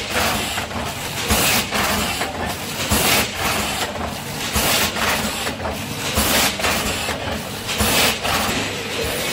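Vertical form-fill-seal packing machine running: a steady mechanical hum with a short, sharp burst of noise repeating about every 0.8 s, one per bag cycle as the sealing jaws close, seal and cut each bag.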